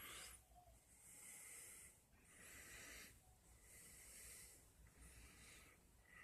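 Faint breathing close to a phone microphone, slow and even, with soft nasal whistles on some breaths.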